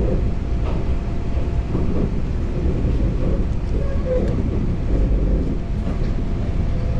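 Two-car Kintetsu electric commuter train running along the track, heard from inside the front cab: a steady rumble of wheels on rail with the car body's running noise.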